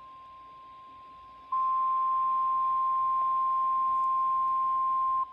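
NOAA Weather Radio warning alarm tone: one steady, high, pure beep near 1 kHz that jumps from faint to loud about a second and a half in and drops off near the end. It is the alert tone that comes ahead of a severe thunderstorm warning broadcast.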